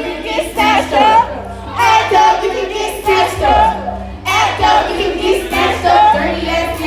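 Karaoke: people singing along loudly to a backing track with a steady bass line.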